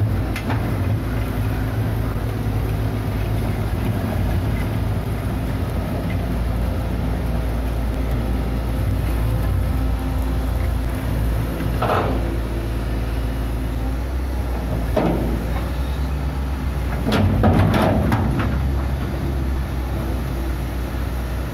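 Hitachi Zaxis 130 amphibious excavator's diesel engine running steadily under load on its pontoon tracks. Short sharp knocks cut through it about halfway, again a few seconds later, and in a louder cluster of several near the end.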